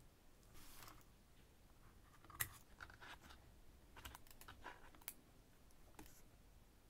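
Faint handling sounds of a cardboard pen box being opened and a plastic Lamy fountain pen being lifted out: a soft rustle near the start, then scattered light clicks and taps, with one sharper click a couple of seconds in and a quick cluster of clicks around four to five seconds.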